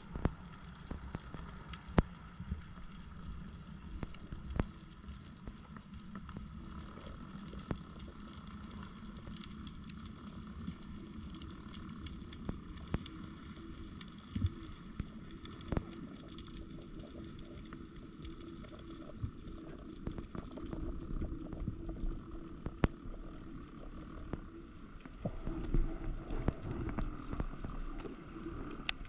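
Underwater sound heard through a camera housing on a deep freedive: a steady low rumble with scattered clicks and crackles, growing louder near the end. Twice, about 4 s and 18 s in, a rapid series of high beeps runs for a few seconds, typical of a freediving computer's depth alarm.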